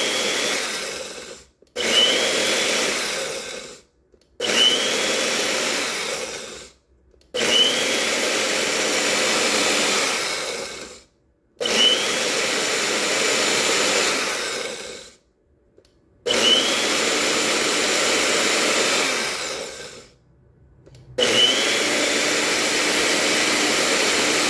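Airpher 850-watt bullet blender pulsed about seven times to grind dry seasoning with red pepper flakes. Each press opens with a quick rising whine as the motor spins up, runs steadily, then cuts off after a short pause. The runs grow longer, from under two seconds to about four.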